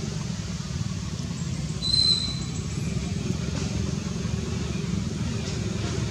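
A steady low rumble, with one short high-pitched chirp about two seconds in.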